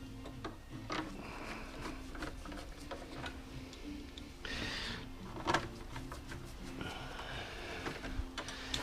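Scattered clicks, knocks and a short scrape of parts being handled, over a steady low hum.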